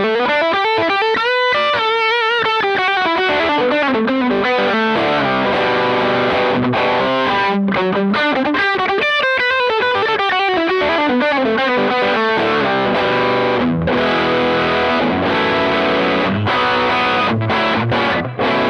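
Distorted electric guitar played through a Fender Hot Rod Deluxe IV valve combo amp on its overdrive channel, pushed by a Maxon OD808 overdrive pedal: a continuous lead passage full of wide string bends and vibrato.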